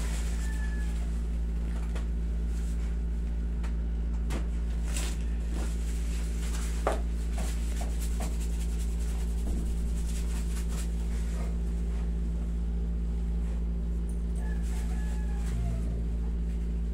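Window-type air conditioner humming steadily, with a few light clicks and taps over it.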